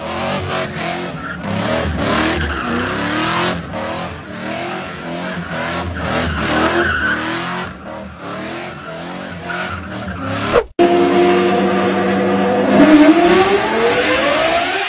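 A car driven hard with its engine at high revs and tyres squealing, as in drifting. After an abrupt cut about eleven seconds in, another car engine runs at a steady pitch, then revs up with a rising pitch.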